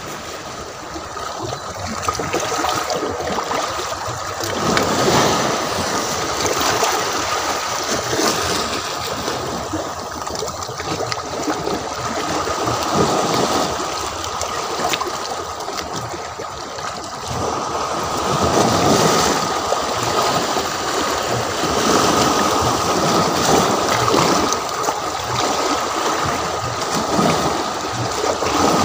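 Small sea waves washing against shoreline rocks and a concrete seawall, a steady wash that swells and eases every few seconds.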